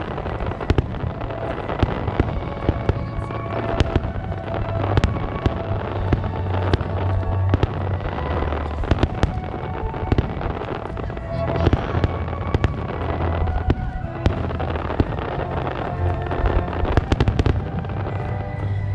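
Fireworks display, with shells bursting in a dense run of sharp bangs and crackles over a steady low boom. Music plays underneath.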